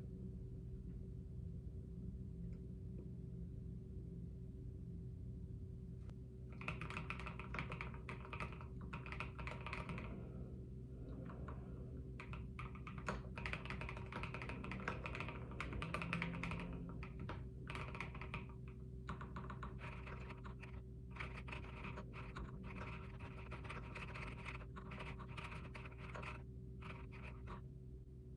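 Typing on an Mstone mechanical keyboard with 45 g Milky switches: quick runs of keystroke clacks begin about six seconds in and continue in stretches with brief pauses. Underneath, a laptop fan runs with a steady hum, spinning hard even under a light load.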